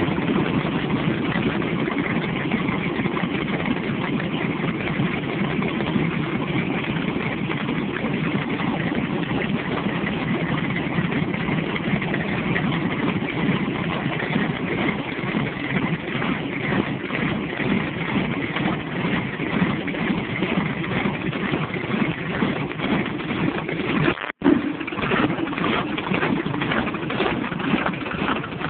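Modified Chevrolet Vega's big exposed engine idling loudly through open headers, with a steady, choppy, lumpy beat.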